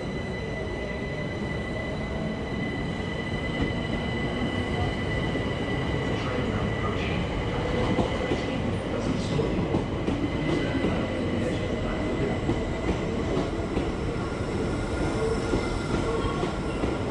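Class 377 Electrostar electric trains moving through the platform. Rumbling wheels carry a steady high squeal and scattered clicks over the rail joints, getting louder a few seconds in.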